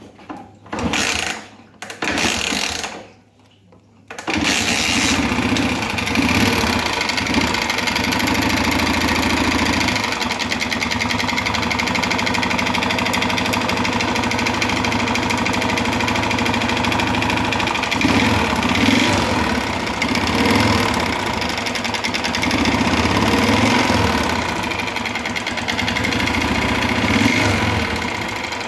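Honda CG 125 Fan's single-cylinder four-stroke engine cranked in two short bursts, catching about four seconds in and then running with several brief rises in revs. It makes a loud mechanical engine noise, which the mechanic later traced to a worn cylinder and piston from running short of oil.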